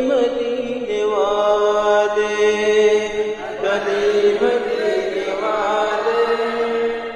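Unaccompanied male voices singing an Urdu naat. The singer draws out long held notes with slow bends and glides in pitch, over a steady sustained tone underneath.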